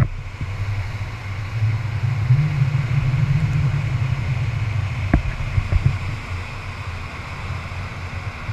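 Boat under way at speed towing a tube: a steady low rumble of engine and rushing wake water, with one short knock about five seconds in.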